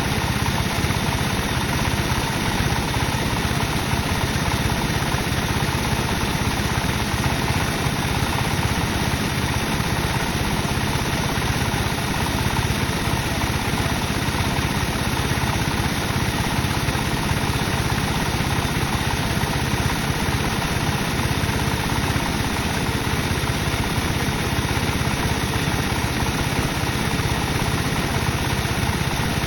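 Sawmill machinery running with a steady, unbroken mechanical drone.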